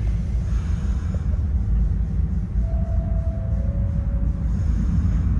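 R62A subway train approaching through the tunnel on the express track, a steady low rumble that grows louder near the end. A faint tone is heard for a second or two midway.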